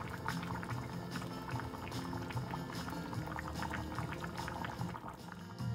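A pan of tomato-based pinto bean chilli with courgettes bubbling and popping at a rolling boil, with background music.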